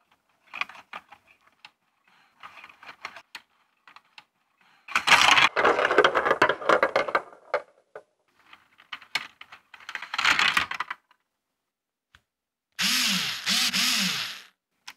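LEGO Technic plastic parts clicking and clattering as the hand-turned control axles spin the football players and the small ball is knocked about, with a dense run of clatter a few seconds in. Near the end a small LEGO electric motor whirs in two short spurts, its pitch rising and falling each time.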